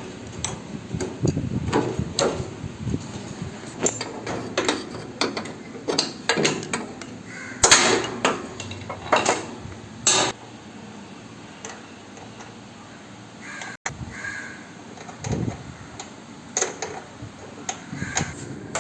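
Irregular sharp knocks and clinks of hand tools on metal, loudest about eight and ten seconds in, with a quieter stretch a little past the middle.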